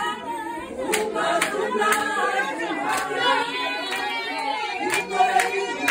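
A group of people singing together with hand claps keeping time, and voices talking in the crowd.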